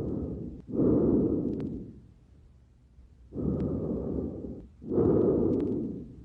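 Lung breath sounds heard through a stethoscope: two breaths, each in two parts with the second part louder, and a pause between the breaths near the middle.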